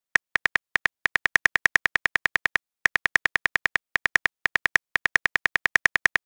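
Phone keyboard typing sound effect from a texting-story app: a quick run of key-tap clicks, about seven a second, pausing briefly twice as a message is typed out.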